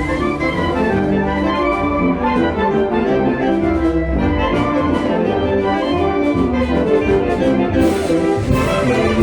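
A brass band (banda filarmónica) playing: trumpets, trombones and other winds in chords over a steady bass line and percussion beat.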